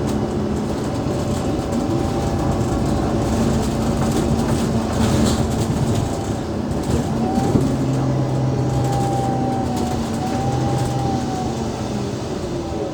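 Interior running sound of an Alexander Dennis Enviro500 MMC bus with a Cummins ISL 8.9-litre diesel and ZF Ecolife six-speed automatic gearbox: steady drivetrain rumble with whine tones that rise and fall in pitch as the bus changes speed.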